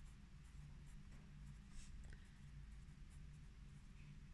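Faint scratching of a pencil writing by hand on notebook paper, over a low steady room hum.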